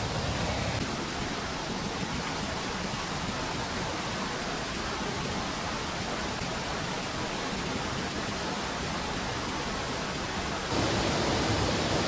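Steady rushing noise of a waterfall's falling water. It turns suddenly louder near the end.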